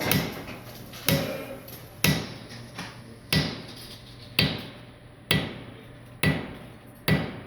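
Hammer blows setting a NACA flush rivet against a rivet snap held in a vise: eight even strikes, about one a second, each with a short ring.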